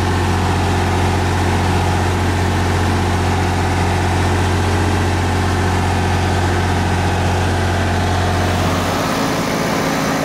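Miller Big Blue 400D welder-generator's diesel engine running steadily under load, carrying the house with a 4-ton AC compressor on at about 29 amps. About nine seconds in, its low hum gives way to the outdoor AC condenser unit running.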